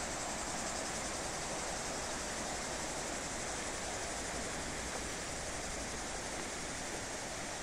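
River water rushing steadily over rocks and small rapids, a constant even rush, with a thin high shrill of insects above it.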